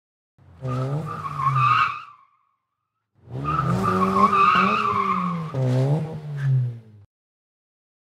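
Car engine running with tyres squealing, in two passes: a short one starting about half a second in and a longer one from about three seconds in that cuts off near seven seconds.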